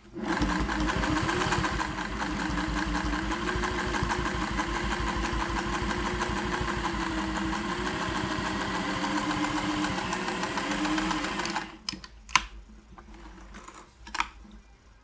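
Singer 401A sewing machine running steadily at speed, stitching through six layers of heavy denim with a fast, even needle rhythm. It stops about twelve seconds in, followed by a few light clicks as the fabric is taken out from under the foot.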